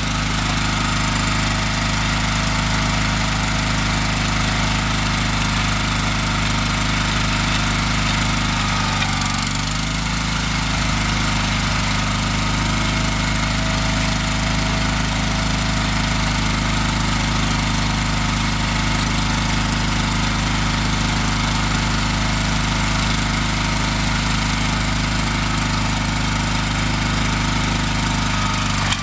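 Gravely 20-G Pro tractor engine running steadily while plowing snow. About nine seconds in, its speed dips briefly and then recovers.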